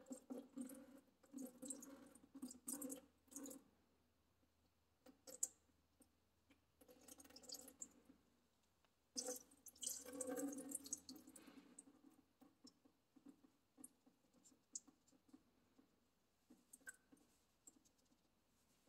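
Near silence with faint handling noises: soft rustles and light clicks from working on the tractor's fuel filter by hand.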